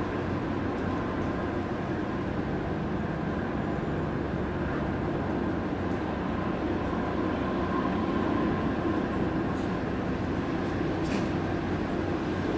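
Steady low diesel engine rumble of tugboats towing a large crane barge, with a faint steady hum over it.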